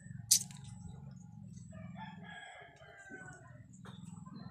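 A rooster crows once in the background, a long call starting about one and a half seconds in, over a steady low hum. A single sharp click near the start is the loudest moment.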